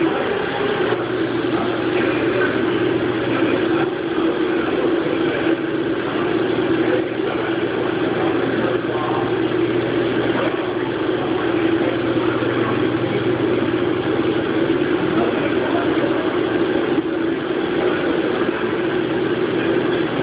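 Haas CNC machine running steadily with a constant machine drone. A lower hum under it stops about two-thirds of the way through.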